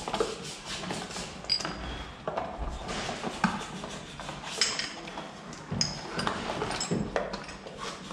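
Irregular clinks and knocks of small metal parts and tools being handled on a workbench, a dozen or so, some with a short metallic ring.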